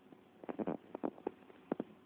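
A quick run of light taps and knocks, about six in a second and a half, starting about half a second in.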